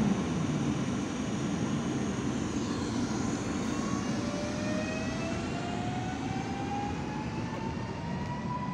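Train running with a steady rumble. From about halfway a whine rises slowly and evenly in pitch, as an electric train's traction motors speed up.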